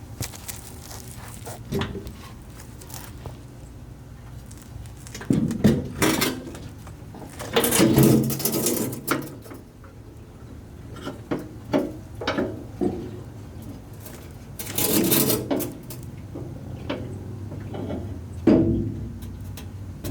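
Intermittent clinks, clanks and scrapes of hand tools and metal parts being handled under a truck, in scattered bursts over a low steady hum.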